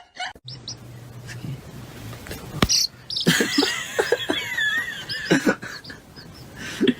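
High, wavering chirping calls from an animal, starting about three seconds in, among a few sharp knocks.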